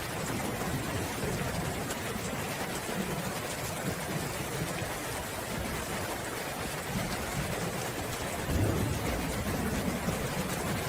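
Steady rain falling, with low rolling thunder rumbling underneath and swelling about eight and a half seconds in.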